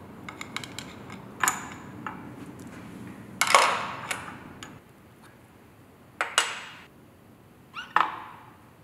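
Steel gearbox parts, gears and synchro pieces pulled off the mainshaft, clinking against each other and being set down on a steel welding table: a few light clicks, then several sharp metallic knocks that each ring briefly, the loudest about three and a half seconds in.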